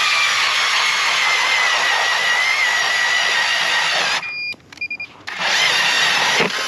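Power ice auger boring a hole through pond ice, a loud steady whine that sags slightly in pitch as it bites. It stops about four seconds in, then starts again about a second later.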